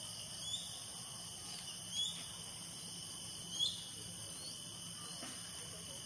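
A few short, high, upturned call notes of a crested goshawk, about one every one and a half seconds, the loudest a little past halfway, over a steady high insect drone.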